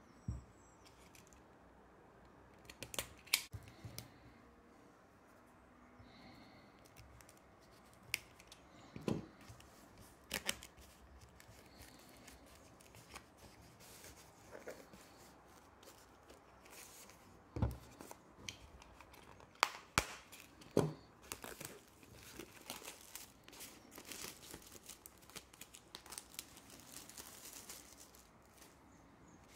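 Clear plastic shrink wrap being picked at, torn and peeled off a cardboard Blu-ray slipcover box. It crinkles, with scattered sharp clicks and taps as the box is handled, and the crinkling is densest in the second half.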